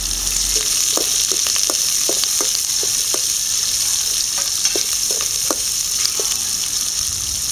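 Chopped onions sizzling in hot oil in a metal pan with tempered spices and curry leaves: a steady frying hiss. A spatula stirring them adds scattered short clicks and scrapes against the pan.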